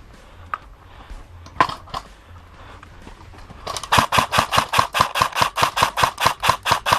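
Airsoft gun firing: a few single shots early, then from just past halfway a rapid, even string of shots at about four or five a second.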